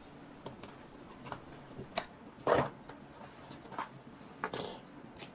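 Hands opening and handling a GoPro's storage case and its accessories: scattered light clicks and plastic rustles, with a sharp click about two seconds in and a louder rustle just after.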